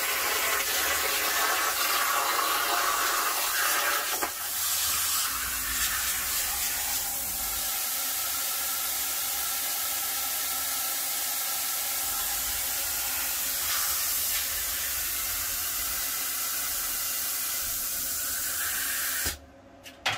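Jasic Cut 45 plasma cutter on a CNC table, cutting steel plate: a loud hiss of the plasma arc and compressed air. About four seconds in it drops to a slightly quieter, steady rush of air, which cuts off abruptly near the end.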